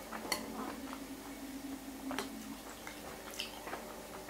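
Someone chewing and eating noodle soup, with a few light clinks of a metal fork against a glass bowl.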